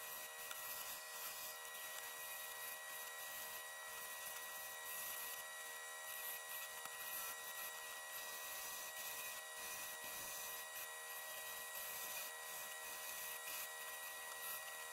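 Benchtop drill press spinning a wire wheel brush while an andiron's iron part is held against it to scrub off rust, heard faint and steady with a constant high whine.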